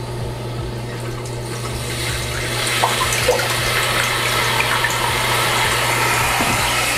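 Toilet tank filling through a newly installed Mansfield ballcock fill valve: a steady hiss and rush of water that grows a little louder over the first few seconds.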